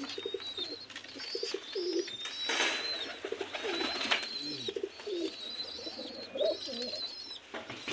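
Domestic pigeons cooing over and over in low, warbling phrases, with thin high calls above them. There is a brief rustle about two and a half seconds in and another about four seconds in.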